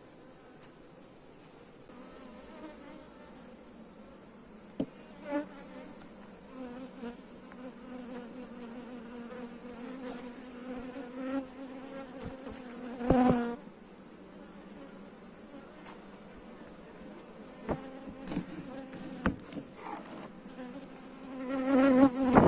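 Honeybees buzzing, with individual bees flying close past the microphone so the hum swells and fades, loudest about halfway through and again near the end. A few sharp clicks.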